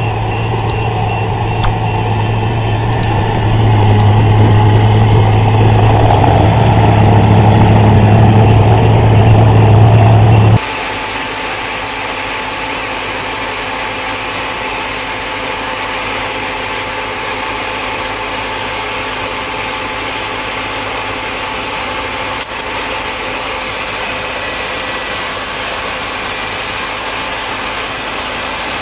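A large articulated four-wheel-drive tractor's diesel engine running, a steady low drone that grows louder about four seconds in. About ten seconds in it cuts suddenly to a quieter, even heavy diesel engine running from farm machinery at a Case IH combine stuck in soft ground.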